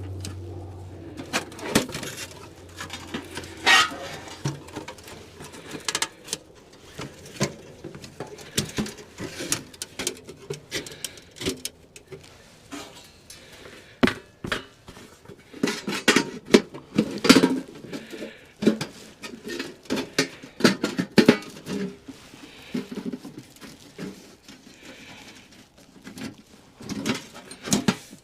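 Irregular clatter of small knocks and clicks, with a low hum that fades out in the first few seconds.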